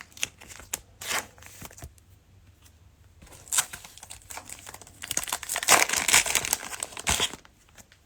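Cellophane wrapper of a Mosaic Basketball cello pack crinkling and tearing as it is opened. There are short rustles about a second in and at three and a half seconds, then a longer, denser stretch of crinkling from about five to seven seconds.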